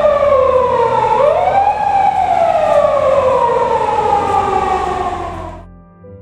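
Japanese police siren on a Toyota Hiace patrol car wailing on an emergency run. It falls, sweeps quickly back up about a second in, then falls slowly again before cutting off suddenly near the end.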